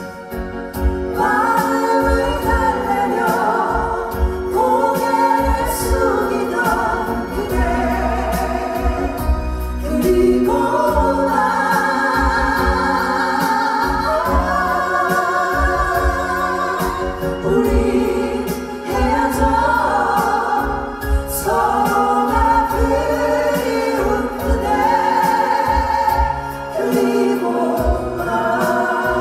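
A four-voice female vocal group singing a ballad in harmony, live, over instrumental accompaniment, in phrases of long held notes.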